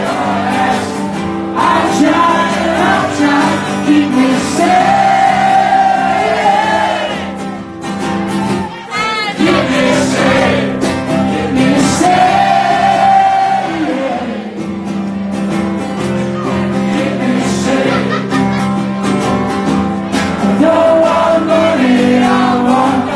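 Male voice singing live, accompanied by a strummed acoustic guitar, with long held notes.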